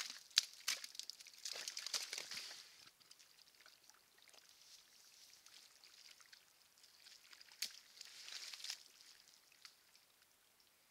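Roosevelt elk bull wallowing in a mud hole: wet sloshing and splashing of mud and water in two spells, about a second and a half in and again around eight seconds, with scattered sharp ticks between.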